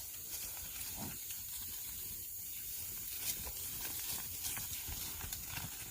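Faint sounds of cattle moving about, with scattered light knocks and clicks over a low rumble.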